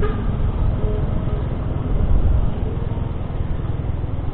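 Wind rushing over the camera's microphone while riding, with a small motorcycle's engine running steadily underneath.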